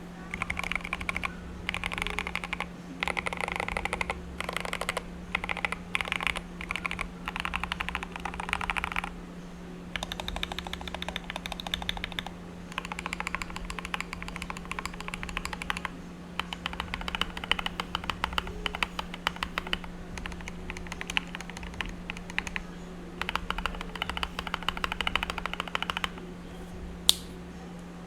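Typing on an Akko 3084B Plus mechanical keyboard with Jelly Pink linear switches and ASA-profile keycaps: fast runs of keystrokes in bursts of a few seconds, with short pauses between. One sharper, louder click comes near the end, over a steady low hum.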